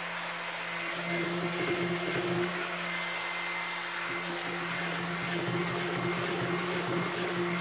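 Hand-held stick blender running at a steady pitch, blending soap batter in a plastic container.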